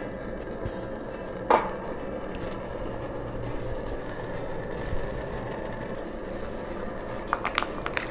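A wok heating a little oil on a stove, with a steady low hum underneath. There is a sharp metal clink about a second and a half in and a quick run of small clinks and scrapes near the end, as the oil is spread around the pan.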